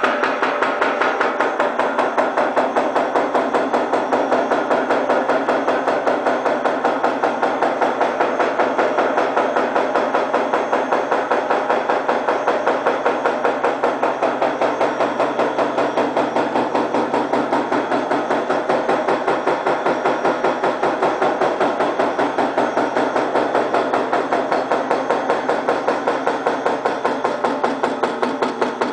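High-speed punch press running continuously, its ram and steel die set striking in a rapid, even beat of metallic clanks.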